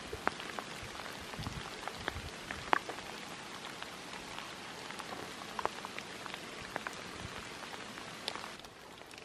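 Light rain falling through eucalypt forest: an even hiss, with scattered close drops landing as sharp ticks. It turns a little quieter near the end.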